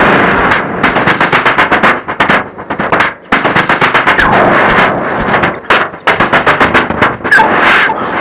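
Vocal imitation of machine-gun fire made with the mouth: several rapid bursts of about ten shots a second, broken by short pauses, with a few single shots and blasts between them.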